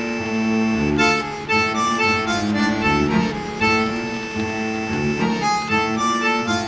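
Background music: a melody of short changing notes over a steadily held low note.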